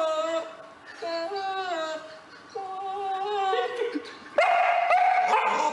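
A dog howling in a series of long, drawn-out notes that step up and down in pitch, each lasting about a second, with a louder, harsher howl about four seconds in.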